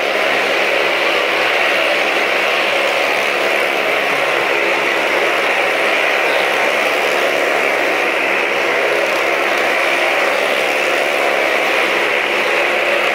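Two motorcycles circling the vertical plank wall of a well-of-death drum, their engines running loud and steady without letting up.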